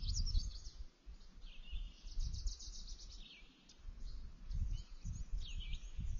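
Several forest songbirds singing, among them a phrase of fast repeated high notes about two and a half seconds in and several short downward-sliding notes, over an irregular low rumble.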